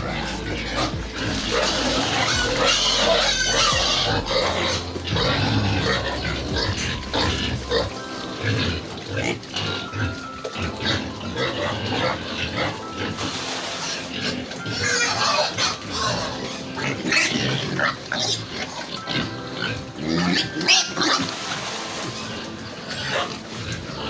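A pen of young pigs feeding together at a concrete trough, with many short, overlapping eating noises and pig sounds.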